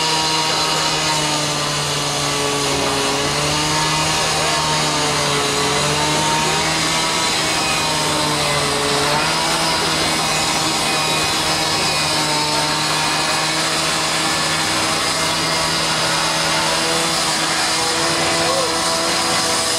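Droning music: a steady low buzzing drone held on one pitch, with slowly wavering higher tones moving over it.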